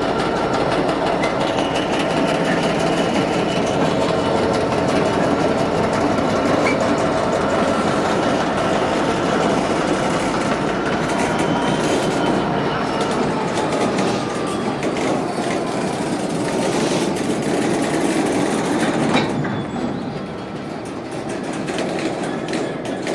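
A long train of freight hopper wagons rolling past on steel rails: a steady heavy rumble with wheel clatter and clicks over the track. A faint tone falls slowly in pitch through the middle, and the sound eases slightly near the end.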